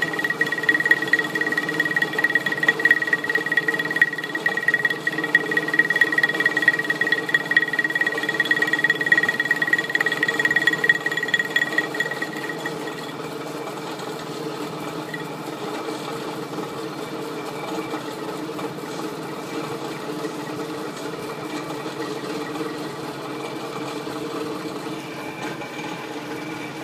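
Millrite milling machine spindle running a corner-rounding cutter along the edge of an aluminium plate: a steady high whine and a rougher, louder cutting sound over the motor's hum. About halfway through, the whine and the cutting noise stop and only the spindle and motor keep running, more quietly.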